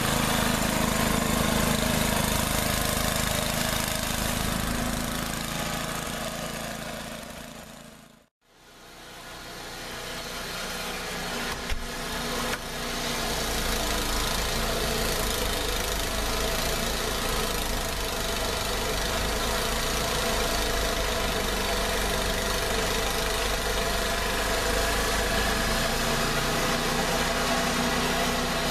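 1989 Toro 824 snowblower's Tecumseh HM80 single-cylinder engine running steadily while clearing snow. The sound fades out completely about eight seconds in, then fades back in and carries on steady, heard from farther off.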